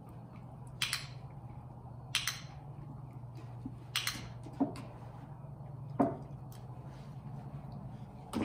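Dog shifting and getting up in a plywood box: a few short scuffs and light knocks, over a steady low hum.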